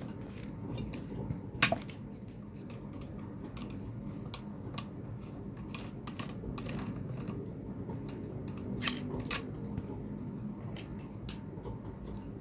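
Scattered clicks and taps of hand tools and metal parts being handled while a submersible pond pump is taken apart, with one sharp click about one and a half seconds in and two more near the nine-second mark.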